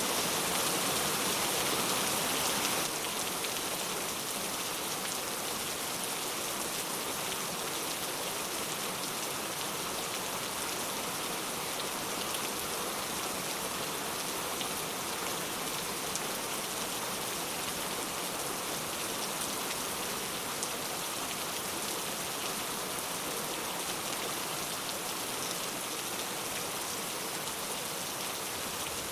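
Heavy rain falling steadily, an even, dense hiss of drops with no thunder. It drops a little in level about three seconds in.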